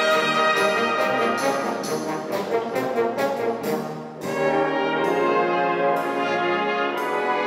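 Concert wind band playing a 1960s pop medley arrangement, brass to the fore. About four seconds in the sound briefly drops, then sustained chords resume with a saxophone soloist playing over the band.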